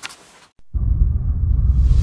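Edited outro sound effect: a deep bass rumble that starts suddenly under a second in, with a whoosh building over it near the end.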